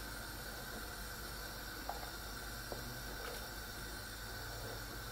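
Steady low hiss of a pot of soup heating on a gas stove, with a few faint knocks of a wooden spoon against the pot as it is stirred.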